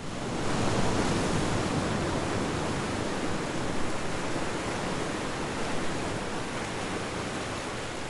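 Steady rushing of ocean waves and surf, swelling in over the first second and then surging gently.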